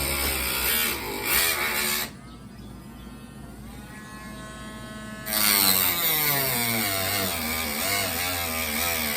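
Cordless rotary tool (Dremel-type) cutting acrylic plastic sheet, its motor whine wavering in pitch under load. About two seconds in it drops much quieter, and it comes back loud a few seconds later.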